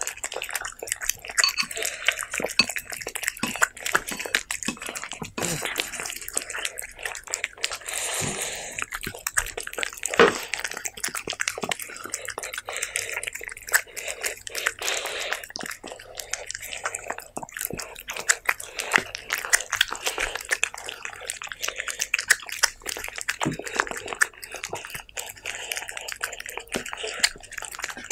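Two cats eating wet cat food from plates: a continuous stream of close, irregular wet chewing, licking and lip-smacking clicks.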